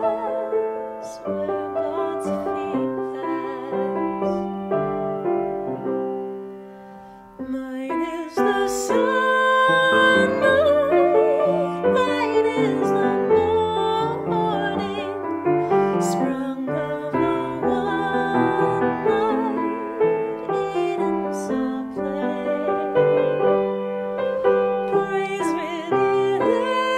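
A woman singing with grand piano accompaniment, her voice held on long notes with vibrato. The music dies away about six seconds in and starts again a second or so later, louder.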